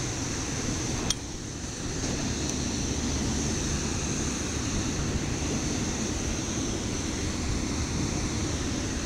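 Steady rush of high, swollen river water around a raft, heard close from the raft itself, with one brief click about a second in.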